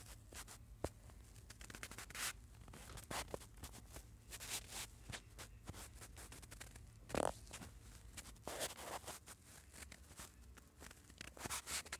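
Faint irregular scratching and rubbing, with scattered small clicks and a louder rub about seven seconds in: handling noise from a finger drawing on and holding a phone's touchscreen, over a faint low hum.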